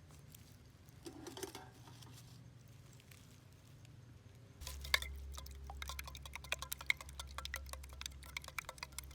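Campfire crackling: quiet at first, then from about halfway a quick irregular run of sharp pops and clicks over a low steady hum.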